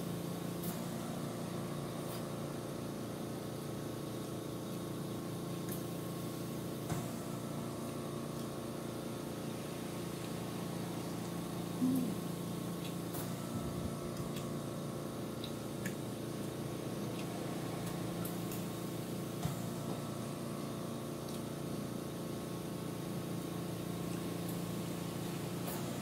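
Steady machine hum made of several steady tones, with a few faint clicks of a metal fork against a ceramic bowl, the strongest about halfway through.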